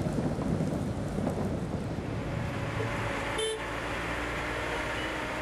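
Steady rumble of busy city street traffic, with a short vehicle horn toot about three and a half seconds in.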